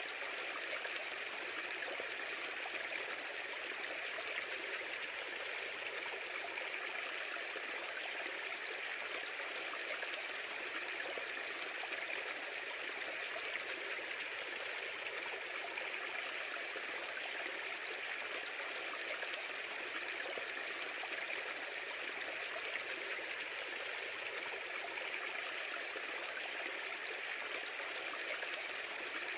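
A steady, even rushing noise like a flowing stream, with no breaks or changes in level.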